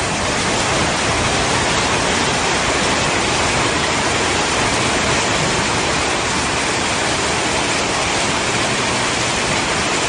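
Heavy rain pouring down in a dense, steady hiss.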